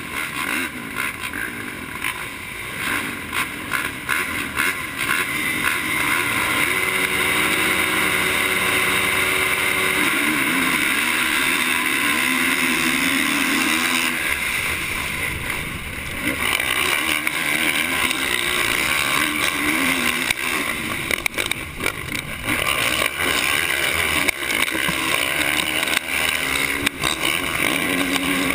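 Motocross bike engines racing at full throttle, heard from an onboard camera on a 450-class dirt bike. The rider's own engine is loudest, its note climbing and dropping as it revs and changes gear, with the other bikes of the pack close around it.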